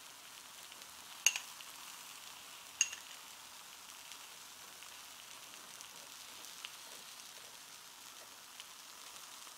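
Thick-sliced bologna frying on an electric griddle: a steady sizzle. Two sharp clinks ring out in the first few seconds, about a second and a half apart.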